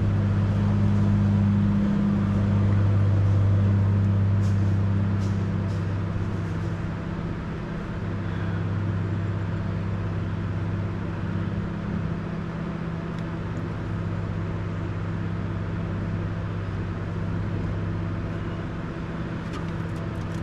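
A steady, low-pitched machine hum, somewhat louder for the first six seconds or so, with a few faint clicks.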